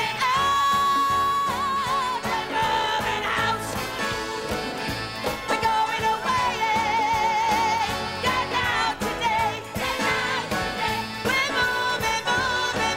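Stage-musical song with orchestral backing: sung voices holding long notes with vibrato.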